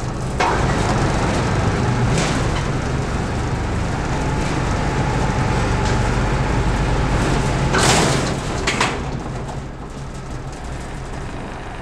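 Construction site noise: a heavy machine's engine running steadily, with a few sharp knocks and clanks, the loudest around two-thirds of the way through.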